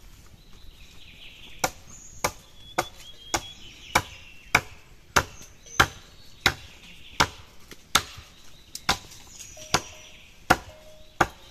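Steady chopping, about fifteen sharp strikes at an even pace of roughly one every two-thirds of a second, beginning a second and a half in. Faint bird chirps sound behind it.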